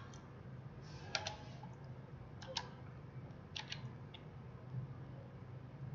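Computer keyboard keys tapped faintly in small groups of two or three, about a second apart, as a number is typed in. A low steady hum runs underneath.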